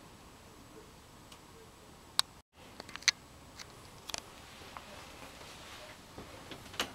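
A few sharp clicks and light taps over a faint steady hiss, with a short break in the sound about two and a half seconds in.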